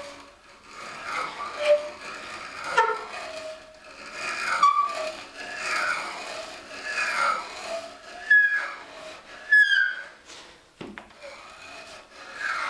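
Bit boring a deep hole into wood, squeaking and rasping in uneven strokes about once a second as it cuts, with a single knock near the end.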